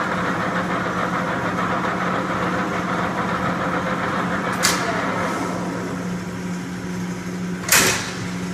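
Clausing Colchester 15x48 metal lathe running with a steady hum. A short sharp noise comes about five seconds in, and a louder one near the end.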